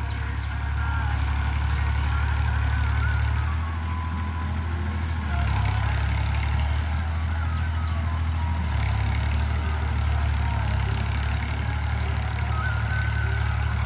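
Ghazi diesel tractor engine running steadily under load as it pulls a plough through the field, a deep steady drone that eases slightly for a moment about four seconds in.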